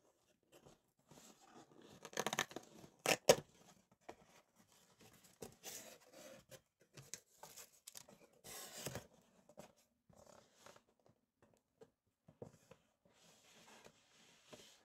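A cake box and its packaging being opened by hand: irregular tearing and rustling of paper or plastic, with two sharp clicks about three seconds in, the loudest moment, and another burst of tearing near nine seconds.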